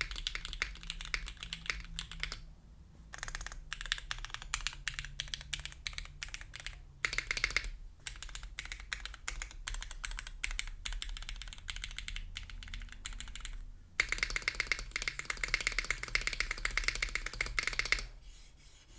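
Clacky typing on a custom mechanical keyboard with lubed and filmed Cherry MX Black Clear Top switches, an FR4 plate and PBT keycaps. Fast runs of keystrokes with short pauses, the densest run near the end, stopping about a second before it closes.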